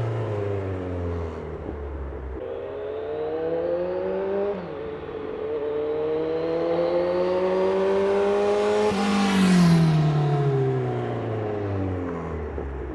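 2015 Kawasaki Z1000's inline-four through a Vance & Hines slip-on exhaust, accelerating with a gear change about four and a half seconds in. It passes close by about nine seconds in, its pitch sweeping down as it goes away.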